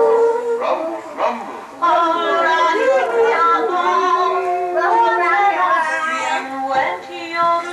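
Several overlapping voices in drawn-out, sung-sounding tones, held notes gliding up and down, without clear words.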